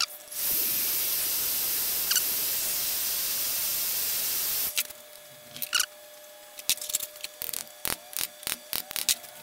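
Electric heat gun blowing steadily for about four and a half seconds, with a thin high whine over its hiss, then switched off. A run of light, irregular hammer taps on the sewing machine's metal parts follows. The heating and tapping work to loosen a stuck part that is being levered off.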